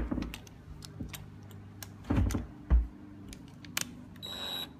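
Clicks and knocks of hand-handled tool and lock hardware, with two heavier thumps a little after two seconds in. Near the end comes a short half-second burst of a cordless drill.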